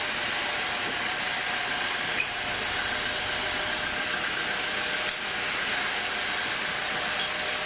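Homemade band sawmill running steadily, its blade sawing through a teak log, with one short sharp tick about two seconds in.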